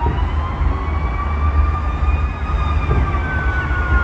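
Fire engine sirens wailing, their pitches slowly rising and falling, over a steady low rumble.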